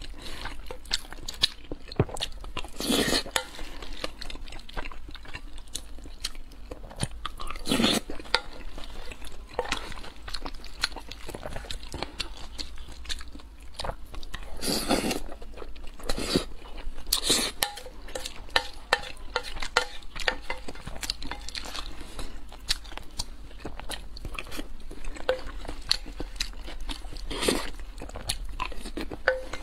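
Close-miked chewing of mapo tofu and rice, with many short wet mouth clicks, and a metal spoon scraping and clinking against a brass bowl now and then.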